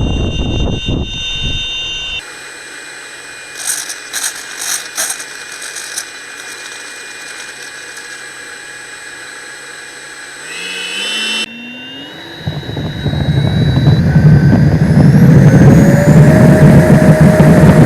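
Radio-controlled L-39 Albatros model jet's power unit spooling up: a rising whine that grows loud and levels off at high power over the last few seconds. Before that, wind buffeting briefly, then a quiet stretch with a faint steady whine and a few clicks.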